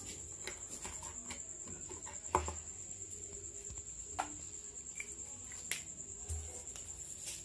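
A steady high-pitched insect trill, like a cricket's, with a few soft knocks.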